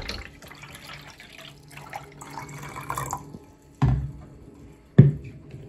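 Water pouring into a large plastic water bottle, stopping about three seconds in. Then two sharp knocks about a second apart, the second louder.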